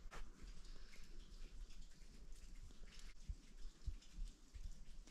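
Faint, irregular footsteps crunching in packed snow.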